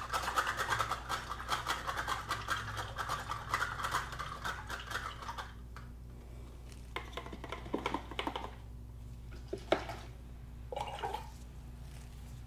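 Paintbrush being swished and rattled in a cup of rinse water, bristles and handle clicking against the container, for about five seconds. A few shorter swishes follow, with a sharp click near the end.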